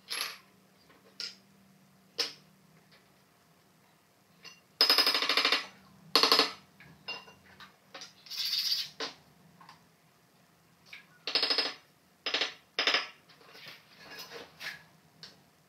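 Ceramic mosaic tile pieces scraping and rattling against each other in about six short, rough bursts, with small clicks and taps between them, as hexagon tiles are handled and pressed into place on a floor.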